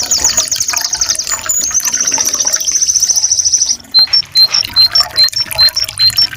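Domestic canary singing: fast rolling trills, then from about four seconds in an evenly repeated alternation of a lower and a higher note.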